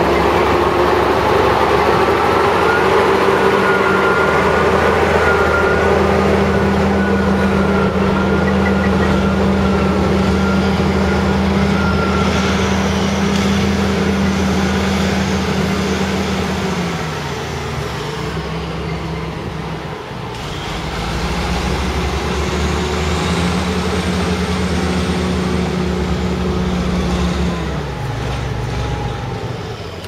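Logging truck's diesel engine labouring at steady high revs as the loaded truck tries to push through deep mud. The revs ease off a little past halfway, build again a few seconds later and drop away near the end.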